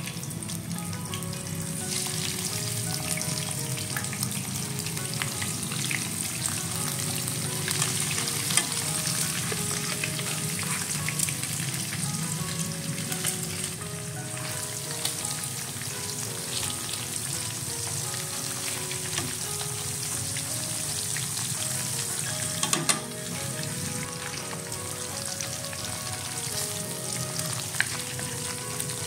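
Beef slices coated in galangal spice paste frying in hot oil in a wok: a steady sizzle with fine crackling. A couple of sharper clicks stand out, once about a third of the way in and again about three-quarters through.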